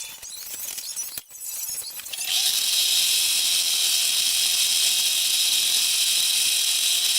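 Aerosol spray paint can spraying: a steady, loud hiss that starts about two seconds in and runs on, after a few lighter clinks that fit the mixing ball rattling in the can.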